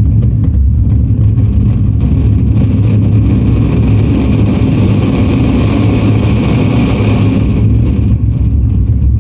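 A loud, steady low engine-like rumble, with a hiss swelling in about two seconds in and fading out near the end.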